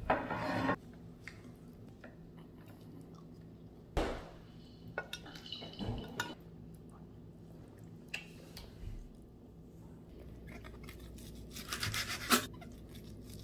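Utensil sounds: a few taps and clinks of chopsticks and a spoon against a pan and plate, then near the end a short run of scratchy strokes as a knife slices through soondae (Korean blood sausage), ending in a sharp knock.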